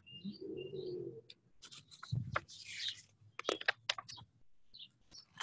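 Pages of a large paperback picture book being opened and turned by hand, a run of crisp clicks and a paper rustle. Near the start, before the page-turning, a dove coos once briefly and small birds chirp.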